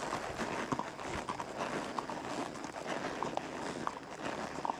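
A horse walking on a trail: uneven hoofbeats with a rustle of fallen leaves.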